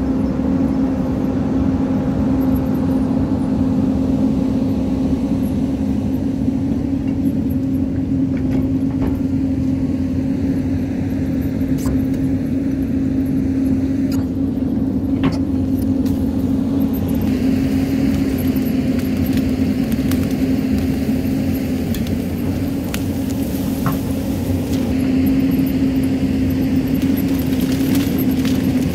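Hyundai Robex excavator's diesel engine running steadily, a constant low hum with a steady tone over it, and a few brief sharp clicks.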